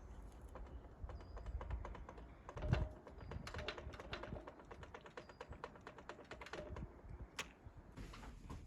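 Rapid series of light clicks and taps of metal bicycle parts and tools being handled and worked, with one heavier knock about three seconds in.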